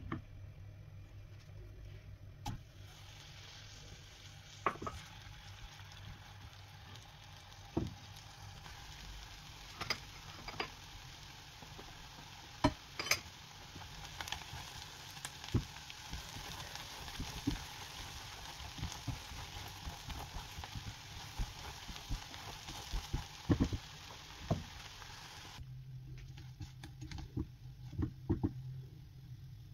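Food sizzling as it fries in hot oil in a pan, with scattered clicks and knocks of a utensil against the pan over a low steady hum. The sizzling starts a couple of seconds in and cuts off abruptly a few seconds before the end.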